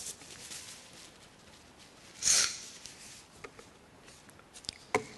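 A woman sniffing once, sharply and loudly, about two seconds in, between tissue paper rustling against the microphone at the start and a few light clicks and taps near the end.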